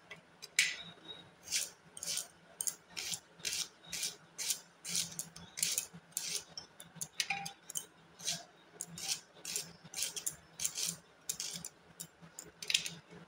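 Onion being sliced on a boti, the fixed upright curved blade: a steady run of crisp cutting strokes, about two to three a second.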